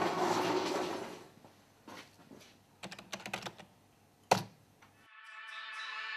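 A rustle, then a few quick taps on a computer keyboard and one sharp, loud click; recorded music starts abruptly about five seconds in.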